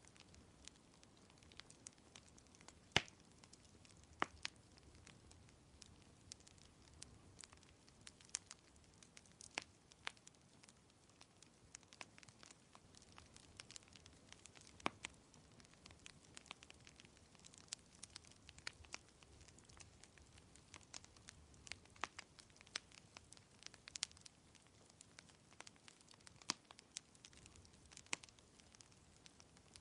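Wood fire crackling: irregular sharp pops and snaps, a few louder ones (the loudest about three seconds in), over a faint steady hiss.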